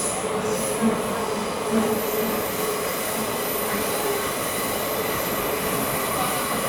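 Metro train running, heard from inside the passenger car: a steady rush and rumble of the wheels on the track, with a faint high whine over it and two light knocks about one and two seconds in.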